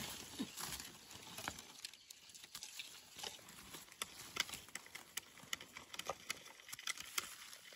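Dry leaf litter and twigs crackling and rustling as gloved hands sweep them aside around a wild mushroom and work it free of the soil, with many scattered small irregular clicks.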